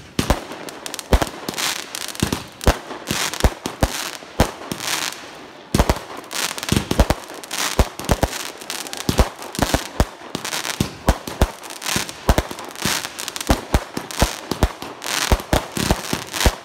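Consumer aerial fireworks firing and bursting overhead in rapid succession: a dense string of sharp bangs, several a second, with noisy crackle between them.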